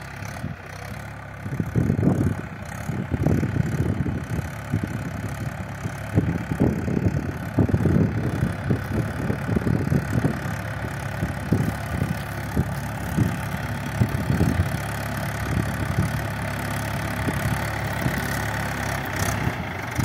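Diesel engine of a Mahindra 575 DI XP Plus tractor running steadily under load while it pulls a tillage implement through dry soil, with an uneven low rumble that settles in the last few seconds.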